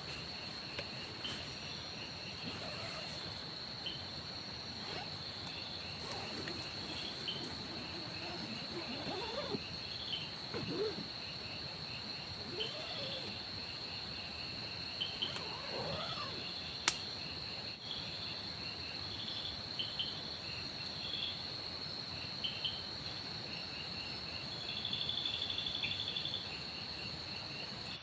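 Forest insects trilling: one steady, unbroken high-pitched trill, with shorter chirps from other insects scattered over it and a louder stretch of chirping near the end. A single sharp click sounds just past the middle.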